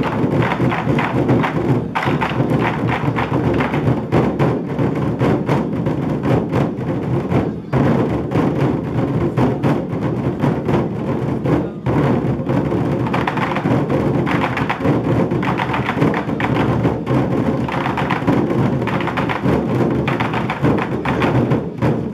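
Twenty-four Festive Drums (二十四节令鼓) ensemble: about two dozen large Chinese barrel drums played together in a loud, dense rhythm, with brief breaks about eight and twelve seconds in.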